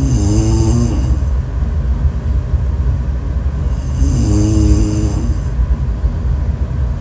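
A person snoring loudly, two long snores about four seconds apart, one at the start and one about four seconds in, over a steady low rumble.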